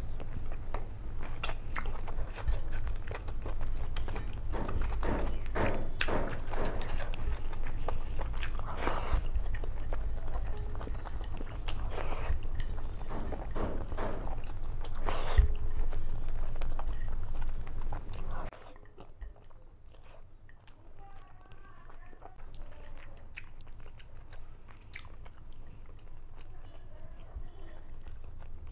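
Wet chewing and mouth clicks of a person eating rice biryani with her fingers, close to the microphone, over a steady low hum. About two-thirds of the way through, the hum and overall level drop abruptly, and quieter, sparser chewing sounds continue.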